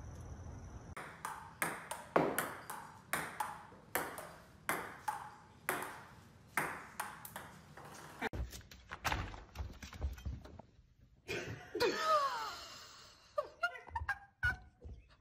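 Ping-pong ball bouncing on a table tennis table in a steady rally, about two sharp ringing pings a second, later giving way to a few irregular knocks and brief gliding sounds.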